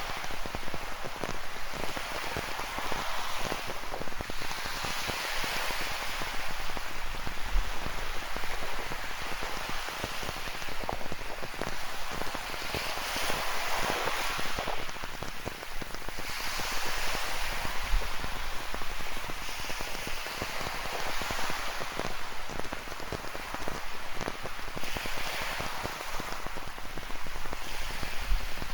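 Rain falling, a dense pattering of drops, over ocean surf that swells and eases every few seconds as waves wash in on the rocky shore.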